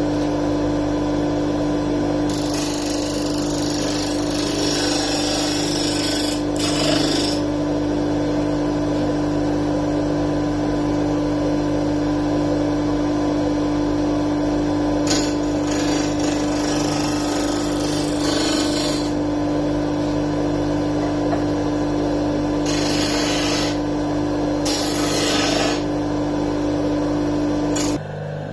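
Disc sander running with a steady motor hum while a piece of wood is pressed against the spinning sanding disc in four spells, each a loud gritty rush of sanding. Just before the end the sander is switched off and runs down.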